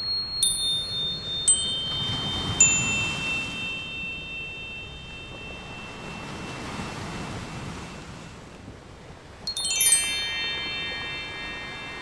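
Chime music on the soundtrack: a few single struck notes ring out in the first three seconds, then a quick run of many chime notes falling in pitch comes about ten seconds in, over a soft wash.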